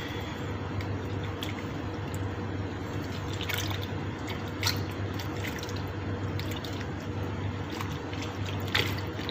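Water splashing and dripping as a hand squeezes and pulls apart wet tamarind pulp soaking in a stainless steel pot of water, with a few sharper splashes along the way. A low steady hum runs underneath.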